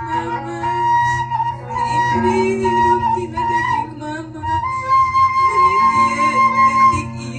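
Flute music: a slow melody of long held notes that slide up and down between pitches, over a steady low hum.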